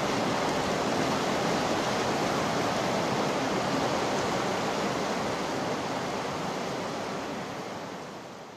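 Steady rush of flowing river water, with no calls or other events, fading out toward the end.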